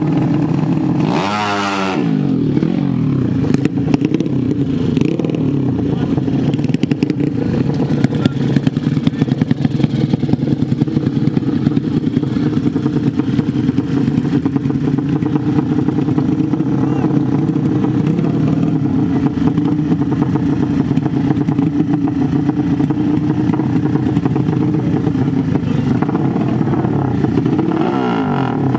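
150 cc drag-bike engines idling, with a quick rev that rises and falls about a second in and another rev near the end.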